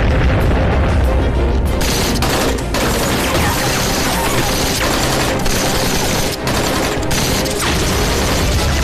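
An explosion rumbles at the start. From about two seconds in, rapid gunfire crackles over background music.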